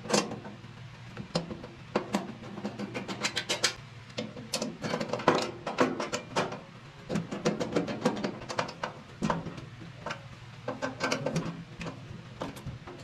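Bolts being turned into the metal side shelf of a wood pellet smoker with a hand tool: runs of quick sharp clicks and clinks, separated by short pauses.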